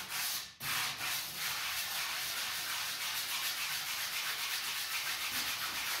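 Sandpaper on a hand block rubbing back and forth over the painted steel of an old LPG gas cylinder, cleaning up its surface: a steady scratchy sound in quick strokes, with a short break about half a second in.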